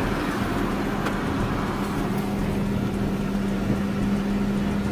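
Vehicle engine idling close by: a steady low hum that grows stronger about a second and a half in, over a rough rumbling background.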